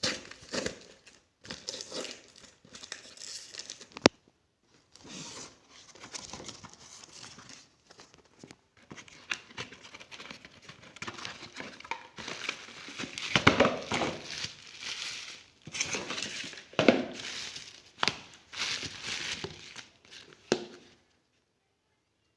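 Packaging being crinkled, rustled and torn open by hand, in irregular bursts with a few sharp clicks, stopping shortly before the end.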